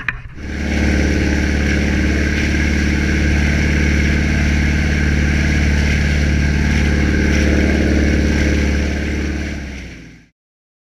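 An engine running at a steady speed with a low, even drone and steady higher tones above it. It cuts off suddenly near the end.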